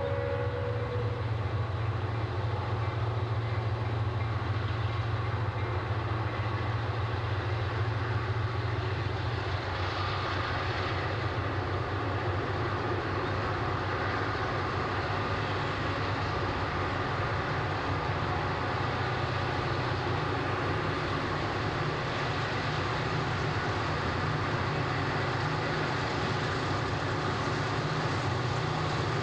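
Diesel freight train passing: a horn note ends about a second in, then the low, steady rumble of the locomotives. After about ten seconds it gives way to a broader, steady noise of freight cars rolling by.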